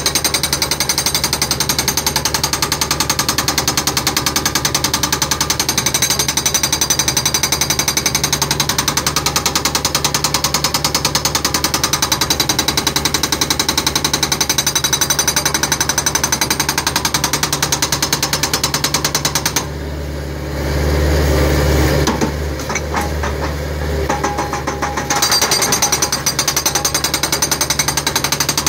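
Machine-mounted hydraulic breaker hammering rapidly into concrete steps, breaking them up. About two-thirds of the way through the hammering stops for several seconds, leaving the carrier machine's engine running with a few irregular knocks, then starts again.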